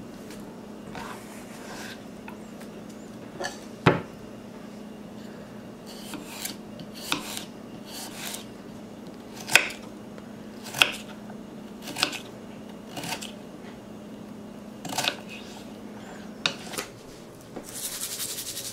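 Kitchen knife dicing red potatoes on a wooden cutting board: sharp, irregular knocks of the blade striking the board, roughly one a second, over a low steady hum. Near the end, a spice bottle is shaken, giving a dry rattling hiss.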